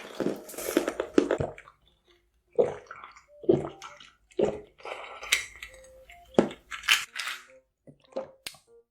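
Close-miked eating sounds: a person biting and chewing soft food, with wet mouth noises coming in short irregular bursts about once a second.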